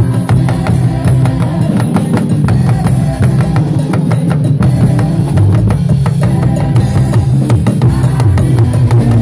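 Yoruba hourglass talking drum struck with a curved stick in quick strokes, played over live church band music.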